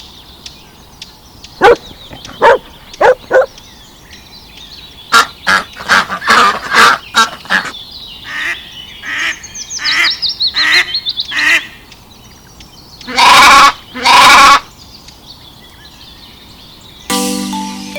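Animal and bird calls: a run of short separate calls, a quick falling chirp series about ten seconds in, then two long loud calls around thirteen seconds in. Music with clear piano-like notes starts near the end.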